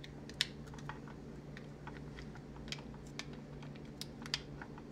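Scattered small plastic clicks and taps as a battery pack and electronics module are handled and pressed into the plastic back housing of a Baby Think It Over infant-simulator doll.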